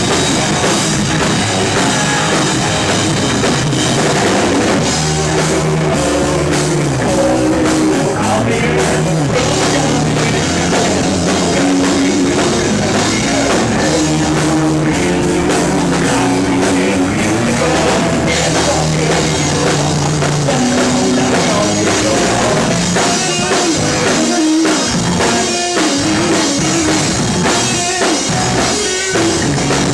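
A rock band playing live and loud, with guitars, bass guitar and a drum kit. Near the end the band plays a series of short stop-start hits, where the bass drops out between strokes.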